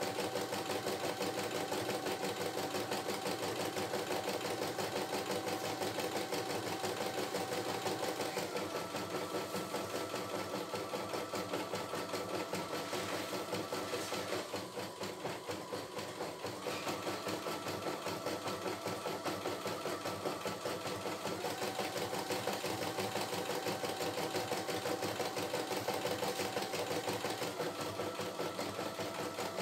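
CNY E960 computerized embroidery machine stitching a design: a steady run of needle strokes over a motor whine that shifts pitch several times, easing briefly about halfway through.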